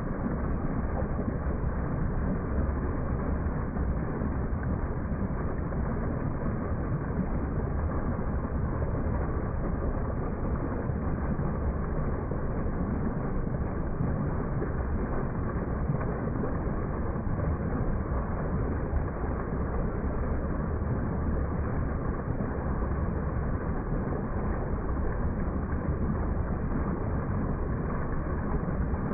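Small waterfall pouring over rock into a pool, a steady rushing of falling water heard close up.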